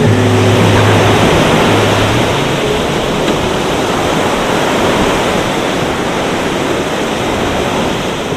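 Ocean surf breaking on a beach: a steady, loud rush of waves. A low held music note fades out in the first two seconds.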